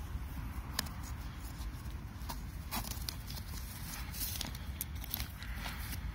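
Light clicks and rustles of a hooked bungee cord and backpack straps being handled, scattered over a low steady rumble.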